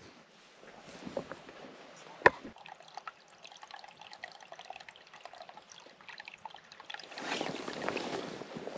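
Small clicks and handling of a coffee cup, with liquid trickling, and one sharp clink a little over two seconds in. From about seven seconds in there is a louder, even rustling noise.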